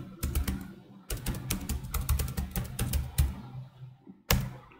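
Computer keyboard keys typed in quick succession, then one sharper single keystroke a little after four seconds in as Enter is pressed.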